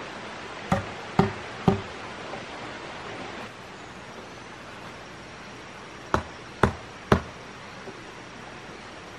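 A tool striking wood in two sets of three sharp blows, each about half a second apart, one set near the start and another about six seconds in, over a steady background hiss.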